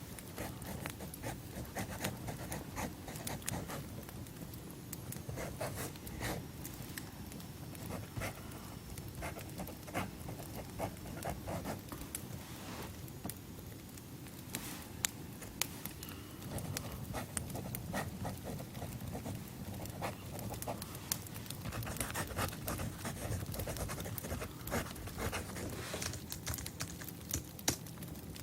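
Campfire crackling: irregular sharp pops and snaps over a steady low rumble of burning.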